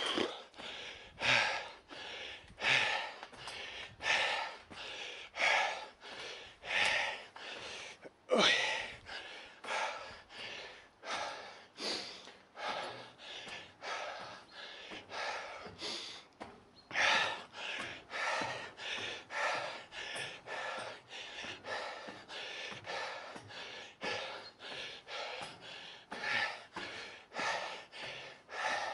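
A man breathing hard in steady, heavy gasps, about one breath every second or so, out of breath from climbing a long, steep stairway.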